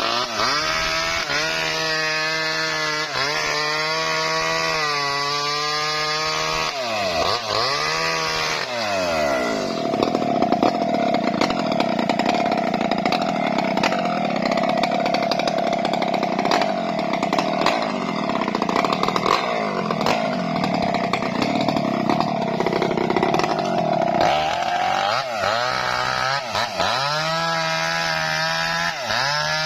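Small two-stroke Maestro chainsaw ripping a coconut palm trunk lengthwise. The engine runs and dips in speed twice in the first nine seconds. It then cuts under load for about fifteen seconds with a rough, rasping sound, and near the end it comes free and runs with a clean engine tone again.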